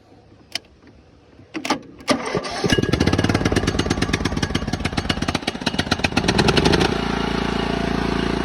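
Ride-on mower engine started with a screwdriver across the starter because the ignition switch won't turn it over: a few sharp clicks, then from about two seconds in the engine cranks, catches and runs rough and fast, settling into a steady run about seven seconds in.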